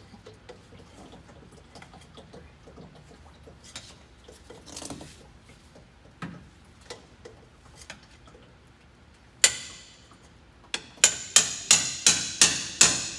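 Hammer driving a filter punch into the bottom of a spin-on oil filter to punch a drain hole: faint handling clicks, then one sharp metallic strike about two thirds in, followed near the end by a quick run of strikes, about three a second.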